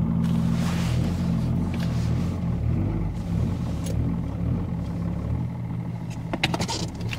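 BMW E39 530d's M57 straight-six turbodiesel idling through a home-welded straight-through exhaust with no muffler: a steady low drone that eases a little toward the end. A few sharp clicks come near the end.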